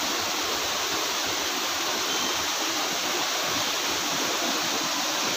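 Steady rush of a waterfall, falling water making an even, unbroken hiss.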